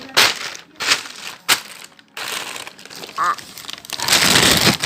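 Crinkling and rustling of handled plastic, with a few sharp clicks early on and a louder, longer rustle near the end.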